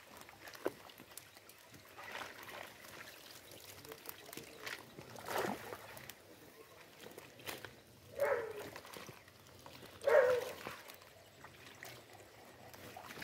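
Small fish splashing and flapping in the shallow water of a pulled-in seine net while being handled into a wicker basket, with water trickling and scattered small splashes and clicks. Two short calls, about two seconds apart, are the loudest sounds, near the end.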